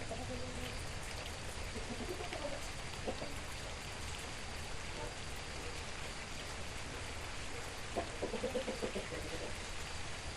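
Steady rain falling, with scattered drips. A chicken clucks in a short run about eight seconds in.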